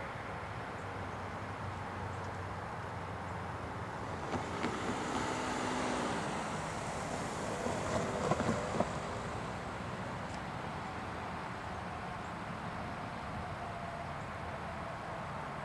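CSX EMD SD70AC diesel locomotive approaching slowly, its diesel engine running steadily with a low rumble. About halfway through the sound grows louder for a few seconds, with a few sharp knocks.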